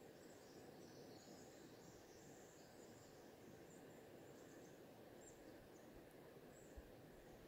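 Very faint river ambience: a low, steady wash of gently flowing water with birds chirping faintly in the forest.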